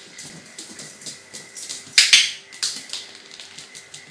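A small dog's claws clicking and skittering on a hard tiled floor as it runs about, with one louder knock about two seconds in.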